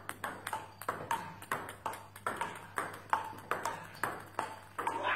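Table tennis rally: the ball clicking off the table and the rubber bats in a quick, steady back-and-forth, about four hits a second, each with a short ringing ping.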